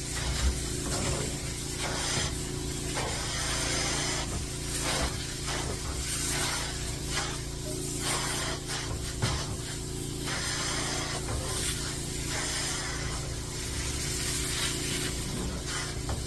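Upholstery extraction cleaner working fabric: a steady machine hum under hissing spray-and-suction strokes of the hand tool that swell and fade in repeated passes about every one to two seconds.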